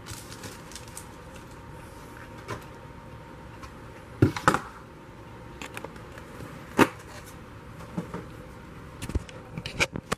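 Handling noise from a handheld camera being moved: scattered knocks and clicks over a steady hiss, the loudest a close pair about four seconds in and a single knock about seven seconds in, with a few quicker clicks near the end.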